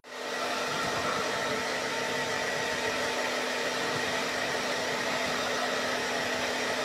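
Hair dryer running steadily: a continuous rush of air over a steady motor whine.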